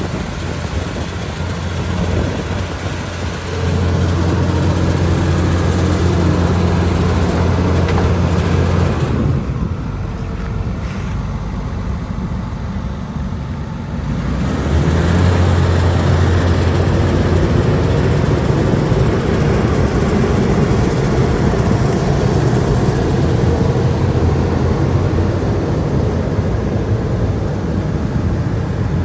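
Diesel engine of a Vögele Super 1900-2 asphalt paver running with a steady low hum. It gets louder about four seconds in, drops away for a few seconds near the middle, then rises again and runs on.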